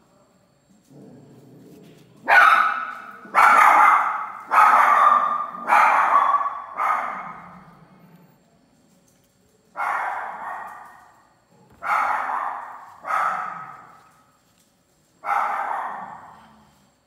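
A dog barking, nine loud barks: five about a second apart, then four more spaced further apart.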